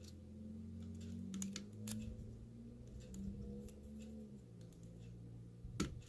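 Small, sharp metallic clicks and ticks from a pick working the pins of a 7-pin tubular cam lock during single-pin picking, a handful scattered through, with a louder click near the end. A faint low hum runs underneath.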